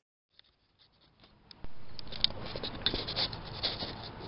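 Camera handling noise inside a minivan cabin: scratching, rubbing and light clicks as the camera is moved and set in place. Nearly silent at first, then louder from about a second and a half in.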